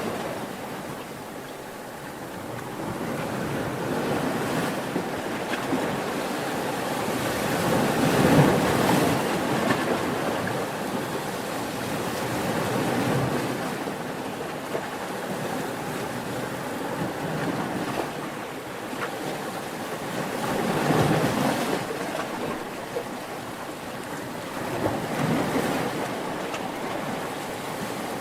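Ocean waves breaking and washing on the shore, the surf swelling and falling back every few seconds. The biggest surge comes about eight seconds in.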